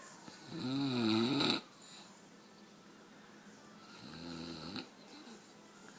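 Snoring: two snores a few seconds apart, the first louder and longer with a wavering, rising-and-falling pitch, the second weaker.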